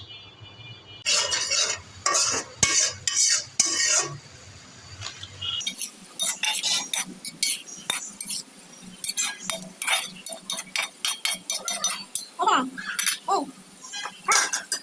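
Metal utensils stirring, clinking and knocking against dishes and pans in a rapid, irregular series of sharp clicks, busier in the second half.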